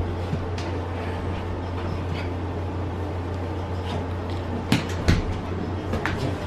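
A wet Pomeranian rubbing and scrabbling on a towel over his dog bed to dry himself, the towel rustling and shifting, with a few sharp knocks a little after halfway. A steady low hum runs underneath.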